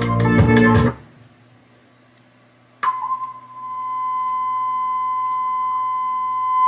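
TEAC A-4010SL reel-to-reel tape deck playing back a recording: music stops about a second in, then faint tape hiss, then a steady 1,000 Hz test tone starts near three seconds in, swells in level and holds.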